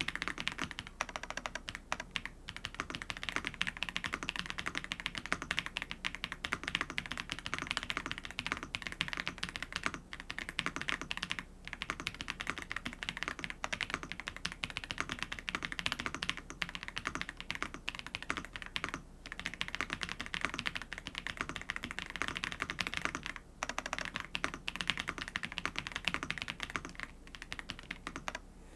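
Continuous fast typing on a Redragon Bragi Pro gasket-mount mechanical keyboard with Redragon Growl Silver linear switches, a dense stream of soft key clacks with a few brief pauses. The sound is the muted, "creamy" typing sound the gasket mount and linear switches are meant to give.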